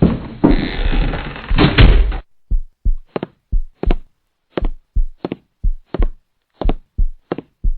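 A loud burst of noise lasting about two seconds, then cut off, followed by a run of sharp, slightly irregular knocks, about three a second. This is the strange knocking heard in a storeroom.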